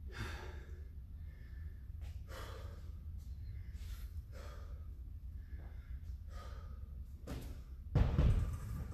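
Hard, gasping breaths of a tired athlete, about one a second. Near the end, a heavy thump as he kicks up into a handstand against the wall.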